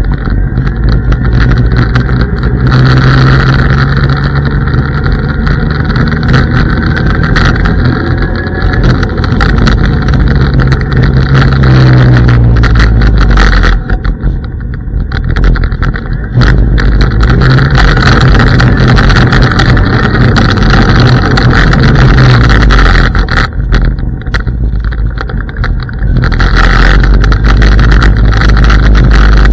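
IO Hawk Legend electric scooter riding over asphalt: a loud, steady rolling rumble with a faint whine that glides up and down in pitch now and then. The rumble eases briefly about halfway through and again a little later.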